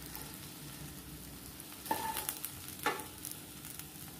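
Wooden spatula scraping sautéed onion, tomato and cashew out of a hot nonstick kadai into a plate, over a faint steady sizzle. Two sharp knocks with a brief ring, about two and three seconds in, as the spatula is tapped against the dishes.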